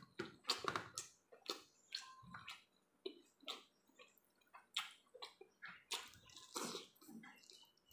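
Sticky rice and curry being mixed and squeezed by hand on a metal plate, then chewed, making an irregular string of short wet clicks and squelches.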